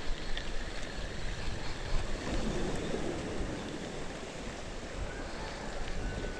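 Steady wind noise on the microphone, with sea water washing against the boulders of a rock breakwater.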